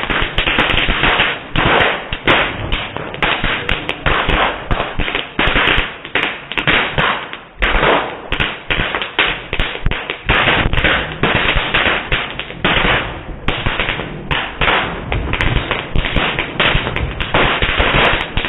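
Fireworks going off in a dense, continuous run of bangs and crackles, several a second.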